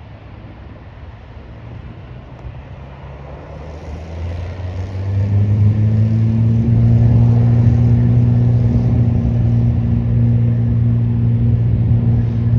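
Twin Rolls-Royce AE 3007 turbofans of an Embraer ERJ-135LR jet at takeoff power. A low rumble grows sharply louder about four to six seconds in, then holds as a loud, steady drone.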